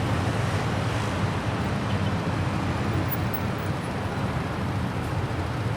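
Steady road traffic: a constant low rumble of passing vehicles' engines and tyres.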